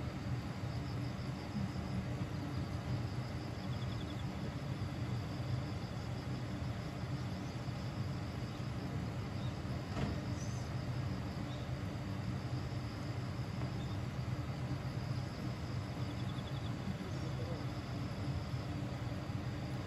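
Low steady hum of a stationary Meitetsu 6000 series electric train, with insects chirping continuously in a fast pulsing trill over it. A single faint click about halfway through.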